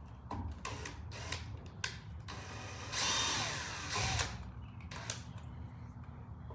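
DeWalt brushless cordless drill running in reverse for about a second and a half, backing out an outlet screw. Light clicks and taps come before and after the run.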